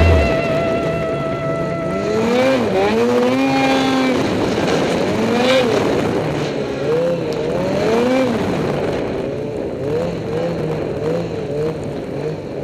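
Snowmobile engine revving up and down over and over as the throttle is opened and eased off while riding through deep snow. Its pitch rises and falls about once a second, with quicker, shorter blips near the end.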